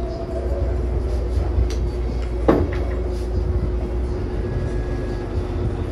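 Spoon and fork working noodles in a bowl of lomi: a few small clicks and one sharper knock against the bowl about two and a half seconds in, over a steady low rumble and hum.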